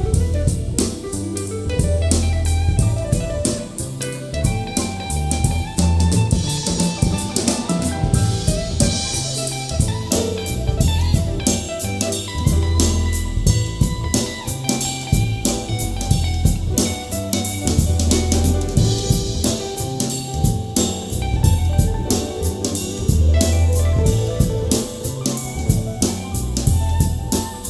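A soul jazz track with drum kit, bass line and guitar, played back through an in-ear monitor for a sound comparison.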